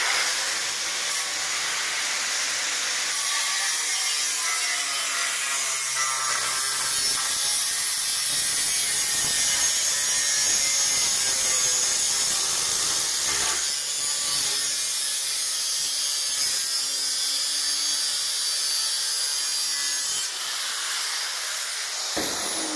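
Angle grinder with a thin cutting disc slicing steadily through a galvanized steel sill repair panel, a continuous high screech. The motor's whine falls away near the end as the grinder winds down.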